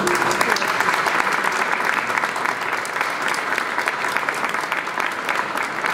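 Audience applauding, many hands clapping together; the applause breaks out suddenly and keeps up at an even level.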